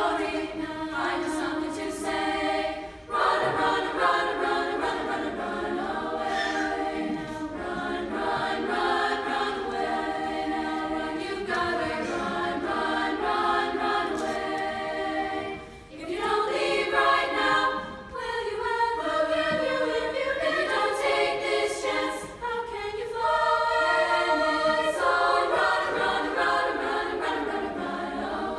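Women's choir singing in several parts, with brief breaks between phrases about three seconds and again about sixteen seconds in.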